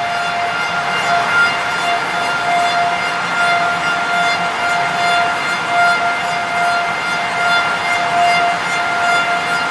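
Bacci T4MO CNC lathe cutting four wooden parts: a steady high-pitched spindle whine over the hiss of the cutter working the wood.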